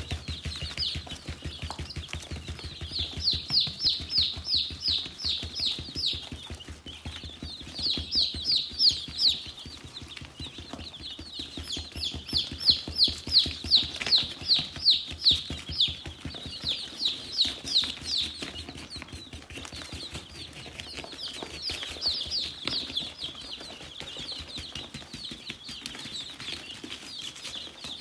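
A group of young chicks peeping continuously: high, short peeps that each fall in pitch, coming in louder runs of several a second.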